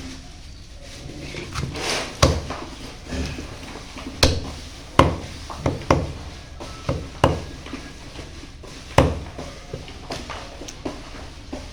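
A knife chopping chicken on a chopping board: irregular sharp knocks, roughly a second apart, with softer cutting and handling sounds between them.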